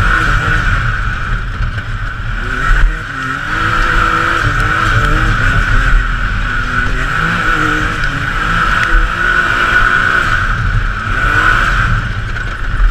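Can-Am Maverick X3 side-by-side's three-cylinder engine revving up and down while driven over rough trail, with a steady high whine throughout. A sharp thump about three seconds in from a bump.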